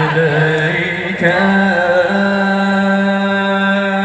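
Sholawat singing from a male lead vocalist, heard live through the stage sound system: a wavering, ornamented vocal line that settles about two seconds in into a long held note.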